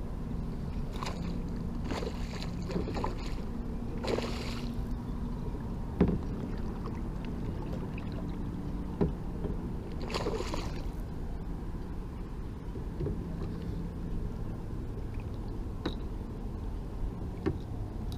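Hooked smallmouth bass splashing at the surface beside a kayak: a few short splashy bursts in the first five seconds and a longer one about ten seconds in, over steady wind and water noise. A sharp knock about six seconds in is the loudest sound, with lighter knocks later.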